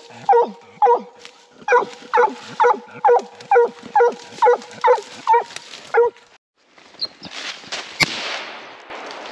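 Coonhound barking treed at a raccoon, a steady run of loud chop barks about two a second with her front paws up on the trunk. The barks stop about six seconds in, giving way to rustling and crashing through dry leaves and brush, with one sharp snap near the end.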